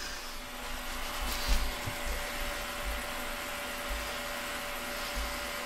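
Permanent marker drawing on paper, faint strokes and scratches over a steady background hum, with a few soft low bumps as the hand and paper move on the table.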